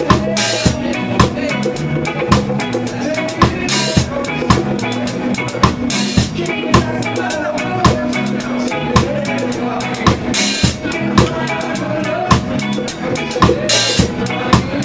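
Live reggae band playing, heard from right beside the drum kit: close, sharp snare and kick hits in a steady groove over a bass line, with cymbal crashes every few seconds.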